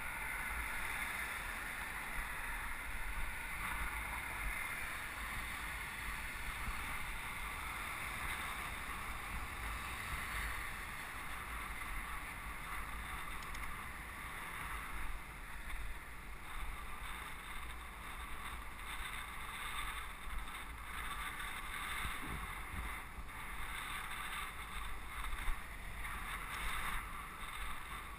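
Steady wind rush and road noise picked up by a camera on a moving bicycle, with a low rumble and the hiss of tyres and passing street traffic.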